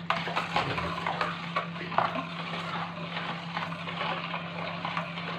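Wire whisk stirring soapy water in a plastic basin: continuous sloshing with many quick, light clicks of the wires against the basin.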